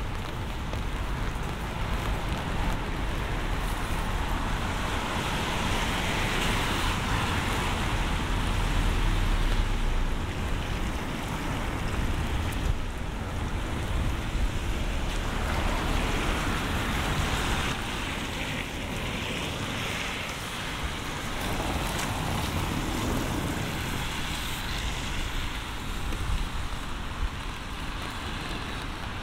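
Steady rain with the hiss of car tyres on a wet road; a vehicle passes, loudest around six to ten seconds in, and further swells of traffic follow.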